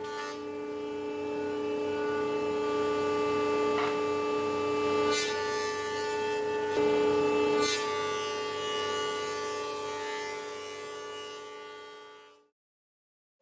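Jointer running with a steady whine from its spinning cutterhead as a walnut board is fed across it, the knives cutting with a louder hiss about 4, 5 and 7 to 8 seconds in. The sound fades out near the end.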